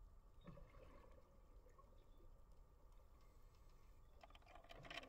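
Faint underwater ambience: a steady low rumble with scattered faint clicks, and a brief cluster of crackling a little before the end.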